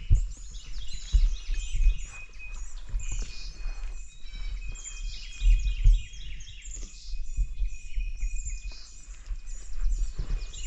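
Footsteps and body movement thudding on a body-worn camera as a person walks, the thuds irregular and loudest here and there. Many songbirds chirp and trill throughout.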